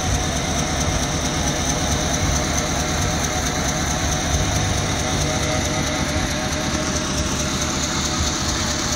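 Chevy C1500 pickup's engine idling steadily.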